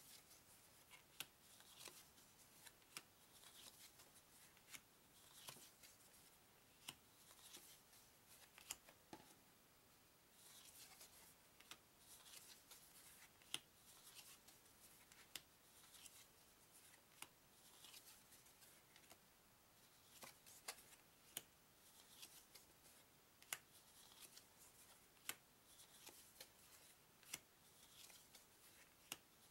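Playing cards from a Hasbro card-game deck being taken off the stack one at a time on a wooden table. Each card gives a light snap, about once a second, with soft sliding of card on card between the snaps.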